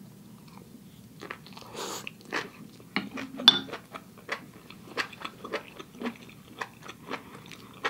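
Close-up chewing of a mouthful of oyster, king oyster and enoki mushrooms: irregular soft, wet crunches and mouth clicks, about two a second.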